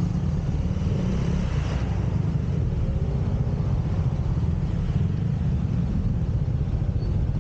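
Motorcycle riding in city traffic: a steady low engine and road rumble.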